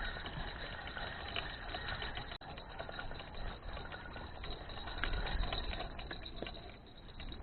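Spinning reel being wound in while playing a fish on a feeder rod: a steady mechanical whir with many small ticks. It breaks off for an instant about two and a half seconds in.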